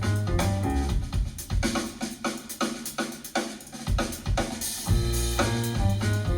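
Recorded music with drum kit, bass and pitched instruments playing through KEF Q Concerto speakers. The bass and kick drum drop out for about two seconds in the middle, then come back in near the end.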